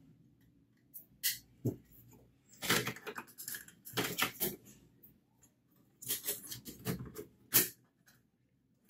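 Hand-handling noise of a drive bracket being fitted into a mini PC's metal case: irregular clicks, taps and scrapes of plastic and sheet metal, with the sharpest click about seven and a half seconds in.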